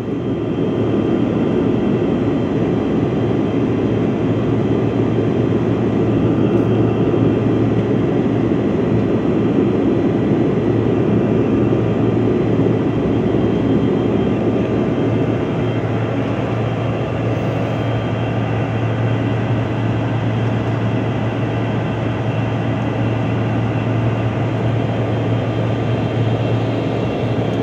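Airliner cabin noise in the climb after takeoff: a steady drone of engines and rushing air, with a constant low hum and several faint steady whines above it.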